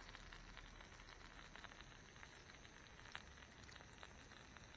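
Faint sizzling and crackling of chopped pork on a hot griddle, with scattered small clicks.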